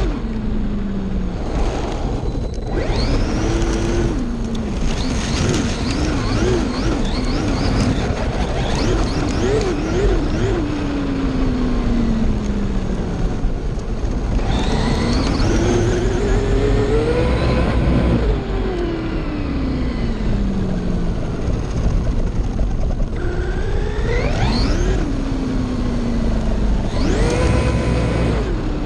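Electric motor and drivetrain of a Traxxas RC car running on 3S with 18/54 gearing, whining in repeated runs. The pitch rises as the car speeds up and falls as it slows or passes, over a steady rush of noise.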